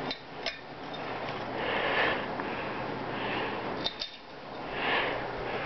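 Harbor Breeze five-blade ceiling fan running, a steady rush of air with three swelling whooshes about a second or so apart. Two light clicks come near the start and just before the last whoosh.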